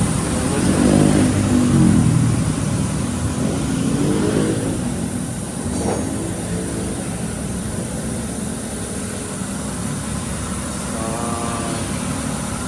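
Motor vehicle engine over steady road noise, its pitch rising and falling twice in the first few seconds as it accelerates and eases off.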